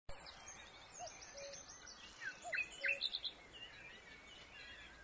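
Several birds singing and calling: quick high chirps, trills and short downward-sliding whistles, busiest around the middle, over a faint steady outdoor hiss.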